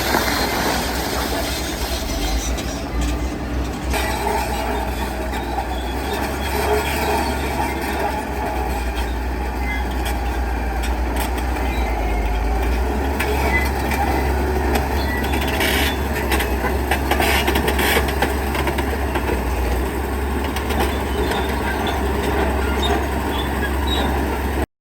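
Heavy diesel construction machinery running steadily, with scattered knocks and rattles.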